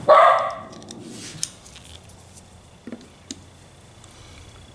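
A dog barks once, loud and short, right at the start and again at the very end. In between come a few light clicks of a screwdriver being set into the small screw of a rifle's front barrel band.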